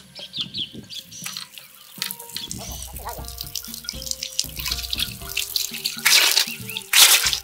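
Water splashing and running, with two louder bursts of splashing about six and seven seconds in, over background music.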